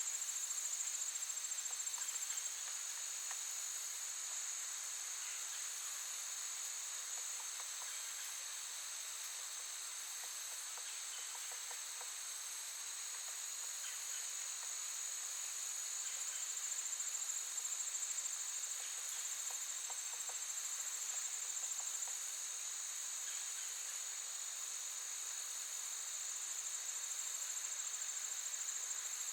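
Crickets chirping in a steady, high-pitched, continuous trill.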